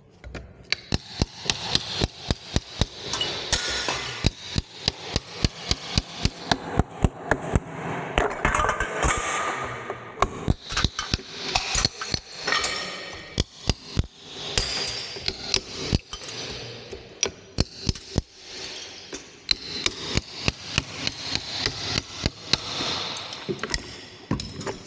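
Claw hammer striking a tile-removing hand chisel in repeated metal-on-metal blows, often two to three a second with a few short pauses, as the chisel drives behind wall tiles. Ceramic tiles cracking and breaking away can be heard between the blows.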